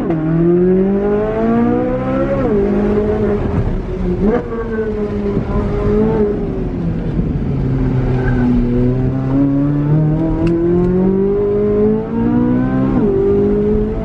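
2023 Corvette C8 Z06's 5.5-litre flat-plane-crank V8 heard inside the cabin, pulling hard through an autocross course. The engine note rises and falls with the throttle, with sharp drops in pitch at quick upshifts; the longest pull climbs steadily from about the middle and is cut by an upshift near the end.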